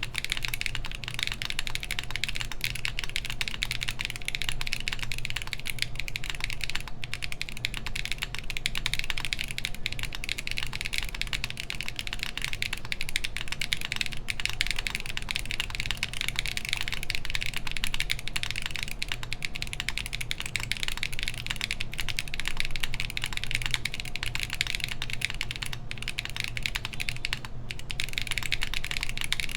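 Fast, continuous typing on a Matrix Lab Magic3 60% HHKB mechanical keyboard with Everfree Grayish tactile switches on an aluminum plate and GMK keycaps: a dense stream of keystroke clacks. A fan hums steadily underneath.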